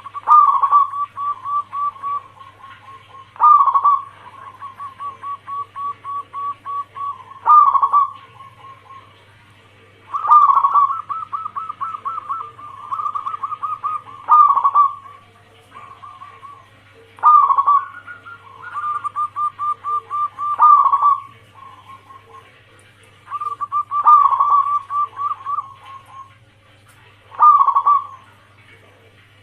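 Zebra dove (perkutut) cooing song: phrases repeated every few seconds, each a loud opening note followed by a rapid string of short coos, over a steady low hum.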